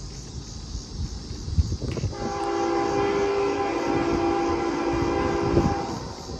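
Diesel freight locomotive's multi-note air horn sounding one long blast, a horn salute, starting about two seconds in and lasting nearly four seconds. A low rumble runs underneath.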